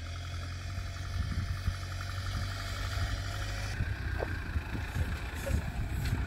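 Mahindra Thar's engine running steadily as a low hum, with irregular low thuds over it.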